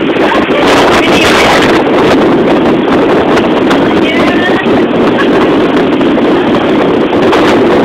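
Loud, steady engine drone of a motorized passenger banca heard on board, with wind buffeting the microphone and passengers' voices faintly in the din.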